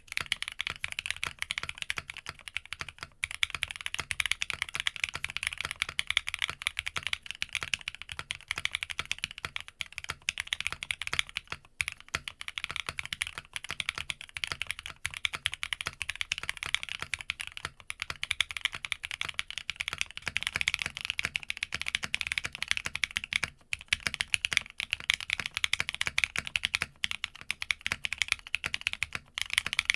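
Steady fast typing on an Arc60 60% mechanical keyboard, a dense run of key clacks. It begins on a polypropylene plate with lubed Zaku II switches. After brief cuts between takes it goes on with Roselle switches, first on an aluminium plate and then on a carbon-fibre plate.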